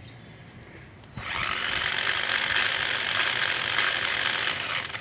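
Five Star 5-in-1 combo tool with its angle-grinder head fitted, switched on about a second in and running free at a steady speed for about three and a half seconds, then switched off.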